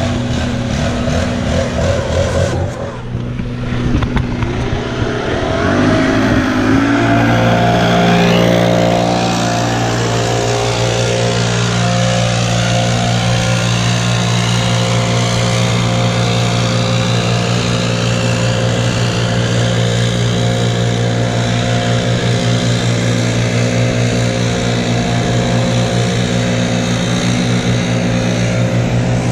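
Small petrol engine of lawn equipment running at high speed. About six seconds in it revs up, then holds a steady pitch.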